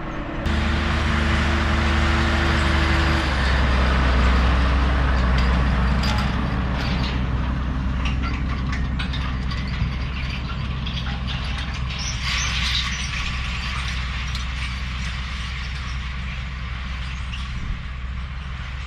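Farm tractor's diesel engine running steadily under working load, a deep hum under a broad mechanical noise; the sound shifts slightly about half a second in and again around three seconds in.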